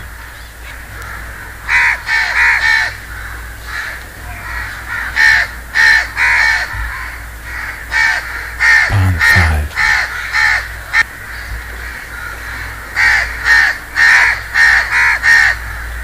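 House crows cawing: harsh caws in bouts of three or four, the bouts a few seconds apart.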